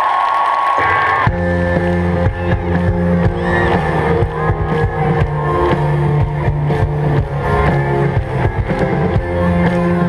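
A live rock band starting a song over a stadium PA. A held note gives way, about a second in, to the full band with bass, drums and guitar.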